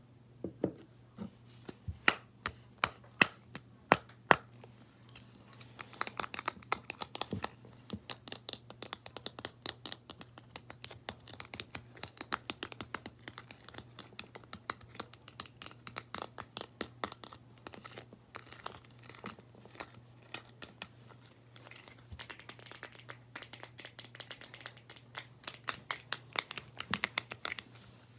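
Fingernails tapping on a small plastic tub: a few separate sharp taps over the first few seconds, then quick, continuous tapping that eases off briefly past the middle and picks up again near the end.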